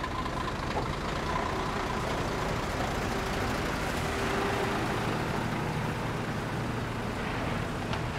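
Heavy lorry's diesel engine running with a steady rumble and road noise.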